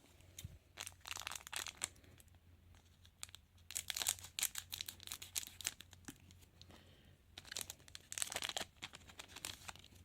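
Trading-card foil packets being torn open and their wrappers crinkled, in three short bursts of crackly tearing.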